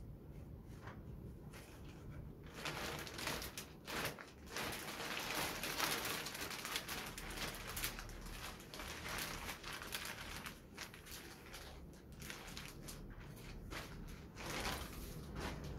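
Thin plastic wrapping rustling and crinkling as it is pulled off a wooden loudspeaker cabinet. The rustle thickens about two and a half seconds in and thins out near the end.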